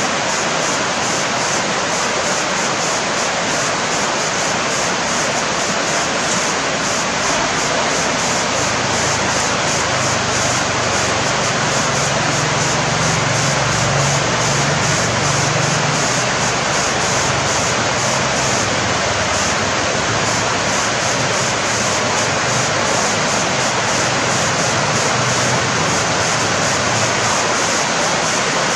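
Steady, even rushing of flowing river water, unbroken throughout, with a faint low hum underneath through the middle stretch.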